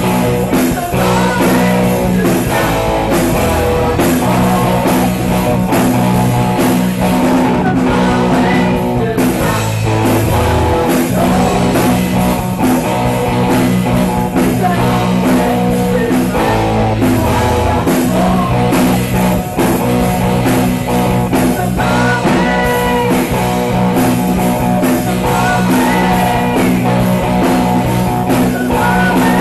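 Live rock band playing a song: electric guitar, bass and drum kit with a singer.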